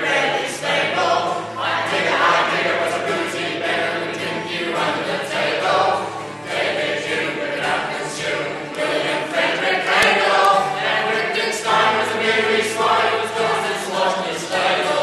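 A group of voices singing a song together, with several singers at once.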